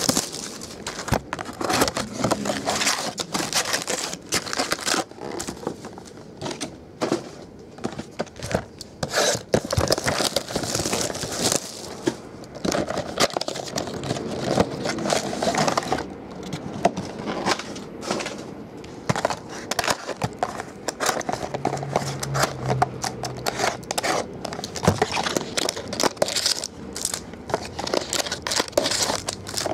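Plastic shrink wrap and foil trading card packs crinkling and crackling as sealed card boxes are unwrapped and opened, with the packs rustling and scraping as they are handled and stacked. The crackling is irregular and dense, full of sharp little clicks.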